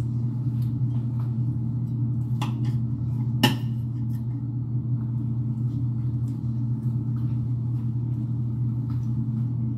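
Steady low hum with a few light clicks and knocks on top, one sharper click about three and a half seconds in.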